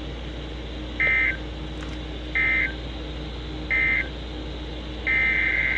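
NOAA Weather Radio SAME data tones: three short buzzy two-tone bursts about a second and a half apart, the end-of-message code closing the severe thunderstorm warning. Near the end a longer burst starts, the first SAME header of the next alert.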